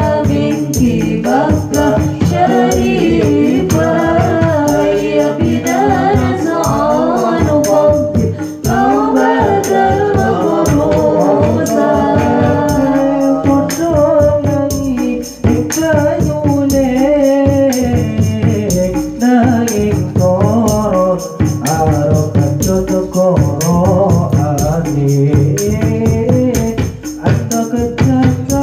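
Sholawat devotional singing through a microphone, accompanied by rebana frame drums played by hand in a steady rhythm.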